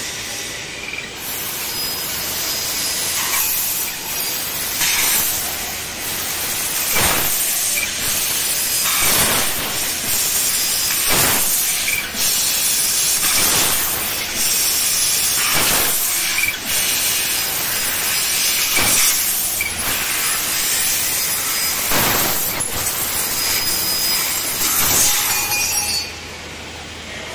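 Leapion LF-3015ST 3 kW fiber laser tube cutter cutting a stainless steel round tube: a steady high hiss of assist gas jetting from the cutting head, with sharp metallic clinks every second or two as cut-off tube pieces drop onto the concrete floor. The hiss and clinks stop about a second before the end.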